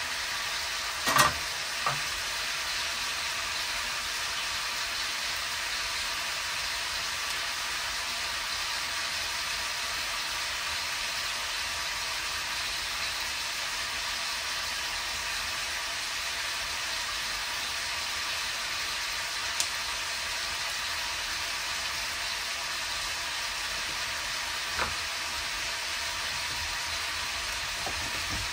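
Bacon and mini sausages frying with a steady sizzle. A few short sharp clicks sound over it, the loudest about a second in.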